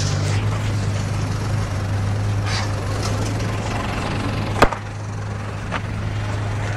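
A vehicle engine runs steadily as a low hum. A single sharp knock comes about four and a half seconds in, and a fainter one about a second later.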